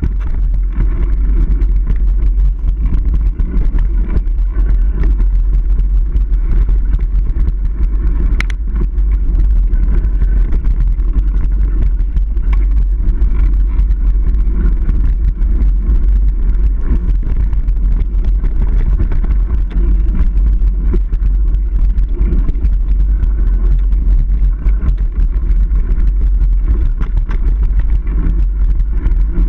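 Continuous low rumble of wind buffeting and trail vibration on the microphone of a camera carried on a Niner Jet 9 RDO full-suspension mountain bike rolling along dirt singletrack. A single sharp click comes about eight seconds in.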